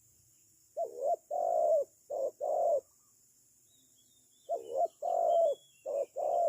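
Spotted dove cooing: two phrases of four notes each, about four seconds apart, the second note of each phrase the longest. Faint high chirps of another bird come in the second half.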